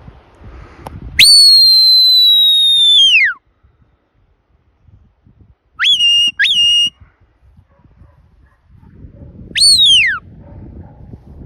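Shepherd's whistle commands to a working sheepdog: one long high whistle held for about two seconds that drops in pitch at its end, then near the middle two short rising whistles in quick succession, then a short falling whistle near the end. Faint wind noise lies between the whistles.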